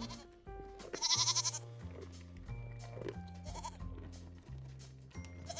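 A goat bleating: one loud, quavering bleat about a second in and a shorter, fainter one around three and a half seconds. Background music plays underneath.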